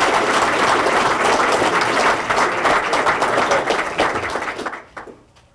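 Audience applauding, a dense patter of many hands clapping that fades away about four and a half seconds in.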